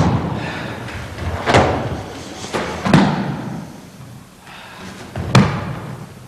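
Bodies slamming onto a mat as people are thrown and take break falls: three heavy thuds, about a second and a half in, about three seconds in and near the end.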